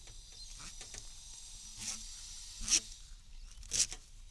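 A drawstring being pushed by hand into flexible plastic conduit: faint scraping rustles, a few short ones about a second apart.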